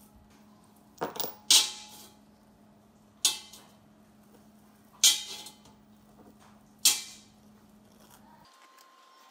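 Metal parts knocked and set down during a workshop build: five sharp clanks with brief ringing, one to two seconds apart, over a faint steady hum that cuts off near the end.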